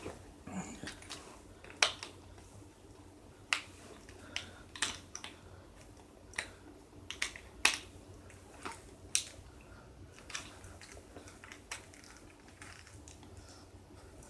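Drop leg holster being handled and adjusted on the leg: about a dozen irregular sharp clicks and snaps with light rustling between them.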